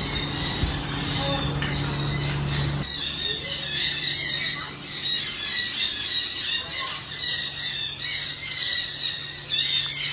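A chorus of high-pitched animal calls, chirping and squawking over and over, several calls a second. Under it a low steady hum cuts out about three seconds in and comes back near the end.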